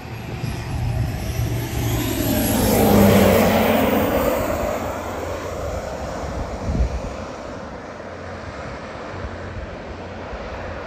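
Aircraft flying low overhead: its engine noise swells to a peak about three seconds in, drops in pitch as it passes, then fades to a steadier hum. A brief thump comes near seven seconds.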